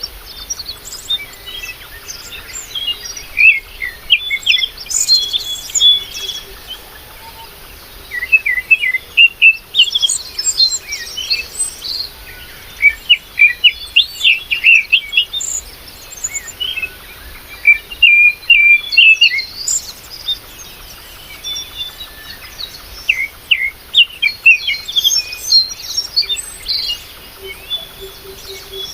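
Several small birds chirping, many short high chirps in irregular clusters with brief lulls between.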